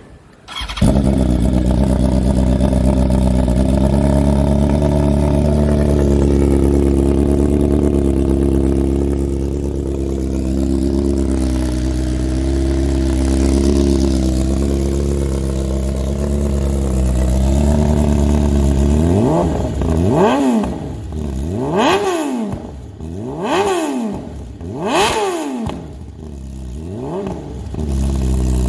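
BMW S1000 RR motorcycle's inline-four engine starting up about a second in and idling steadily. Near the end it is blipped through five quick revs, each rising sharply and dropping back, before it settles to idle again.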